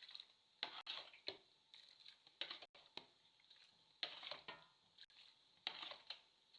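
Faint kitchen handling sounds: a series of short scraping or rustling strokes, about one every second and a half.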